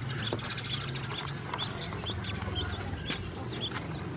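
Ducklings peeping over and over, short high peeps several a second, with a low steady hum underneath.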